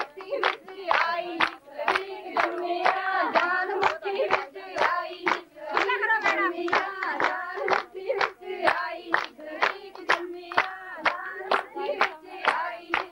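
Group of women singing Punjabi boliyan together over steady rhythmic hand-clapping for giddha, about two claps a second.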